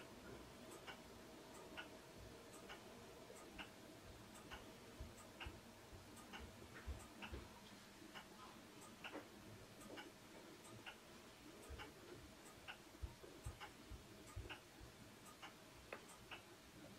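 Faint ticking of a clock, about one tick a second, over quiet room tone.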